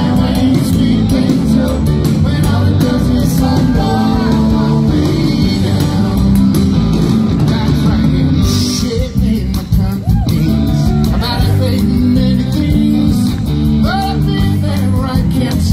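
Live rock band playing loud through a PA: a lead vocal over electric guitar, bass and drums, heard from within the audience.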